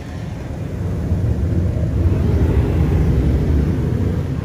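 Laserwash G5 touchless car wash machine running, heard from inside the car as a low rumble that grows louder over the first two seconds and then holds steady.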